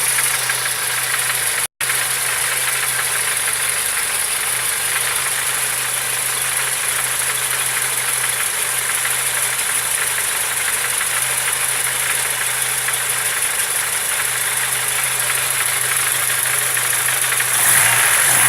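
Car engine idling steadily with a knock in the engine, with a brief break in the sound about two seconds in and the sound getting a little louder near the end.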